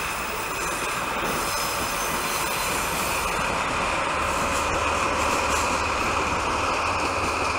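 Diesel shunting locomotive running through a rail yard: steady wheel and track noise with a thin high wheel squeal, and a low engine rumble that grows about halfway through.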